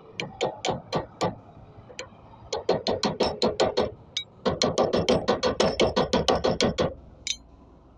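Hammer striking metal: a few separate blows, then two fast runs of rapid hammering at about seven strikes a second, stopping near the end.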